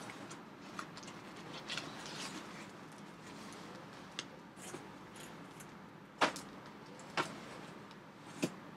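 A shrink-wrapped package and a cardboard box being handled: soft rustling with scattered sharp clicks and taps, the three loudest about six seconds in, a second later, and near the end.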